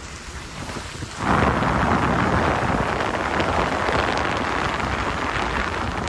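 Car tyres hissing on a wet, slushy road, heard from inside the moving car. A low, quieter rumble at first; about a second in the hiss jumps suddenly louder and stays steady.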